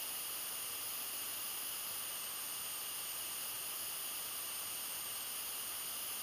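Steady hiss of the recording's own background noise, with no other sound.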